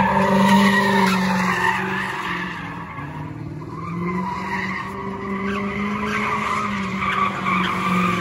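A car drifting on asphalt, its engine held at steady high revs while the tyres skid; it eases off about two to three seconds in, then builds again.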